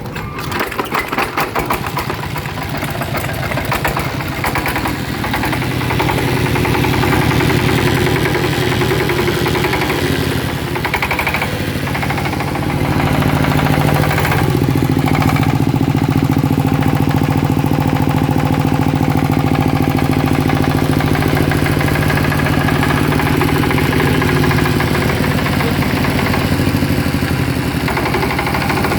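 Yamakoyo ZS1130G single-cylinder diesel engine running just after being hand-cranked to a start. It runs unevenly for the first few seconds, then picks up, and from about halfway through settles into a steady, louder run with a regular knock of firing.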